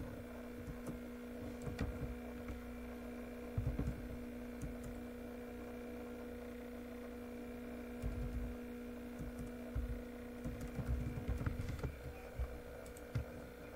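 Scattered computer keyboard keystrokes, in small clusters, over a steady low electrical hum.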